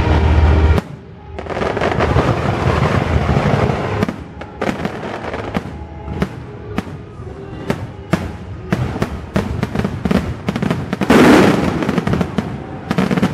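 Fireworks display: shells bursting in quick succession with many sharp bangs and crackling, over the show's accompanying music. The bangs come thick and fast through the second half, with the loudest burst about eleven seconds in.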